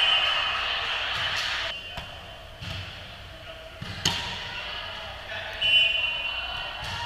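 A volleyball smacked on a serve about four seconds in, the hit echoing through a large gym. Short high sneaker squeaks on the hardwood floor near the start and again about a second before the end.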